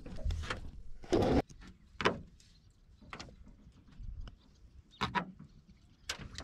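Scattered knocks and scrapes in a wooden boat's metal-lined fish hold, with one louder scraping thump about a second in and smaller sharp knocks spaced about a second apart after it.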